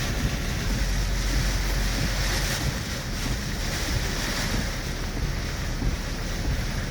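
Cyclone-force wind blowing constantly, buffeting the microphone with a heavy low rumble under a steady rushing hiss.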